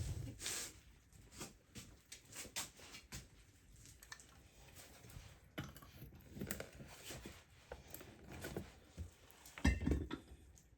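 Scattered faint clinks and knocks of kitchen utensils and dishes being handled, with one louder knock near the end.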